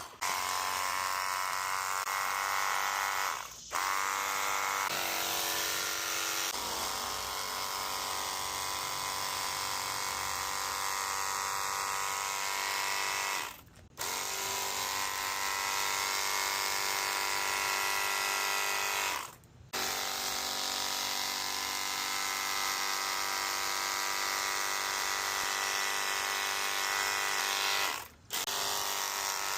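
Small cordless 800 PSI pressure washer's pump motor running with a steady whine. It cuts out briefly four times and starts again each time.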